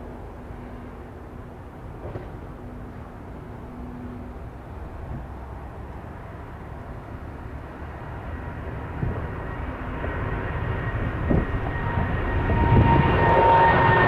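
Boeing 787 Dreamliner's twin Rolls-Royce Trent 1000 turbofans at takeoff thrust as it lifts off and climbs out: a steady jet roar that grows louder, with a high engine whine coming in over the last few seconds.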